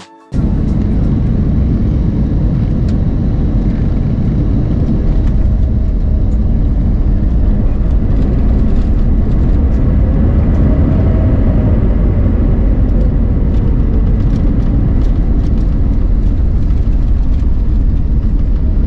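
Cabin noise of an Airbus A320neo landing and rolling out on the runway: a loud, steady rumble of the engines, airflow and wheels. About ten seconds in, a faint whine rises and falls.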